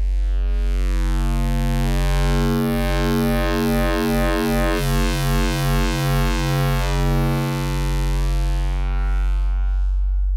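U-he Zebra 2 software synthesizer holding a low sine tone fed through its wave shaper. The plain hum turns bright and buzzy as overtones are added, and its timbre keeps shifting and pulsing as the shaping changes. Near the end it thins back to an almost pure sine.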